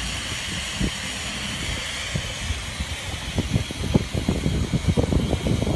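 Steady low rumble of road traffic and stopped trucks, with irregular low thuds on the microphone that grow denser and louder from about three seconds in.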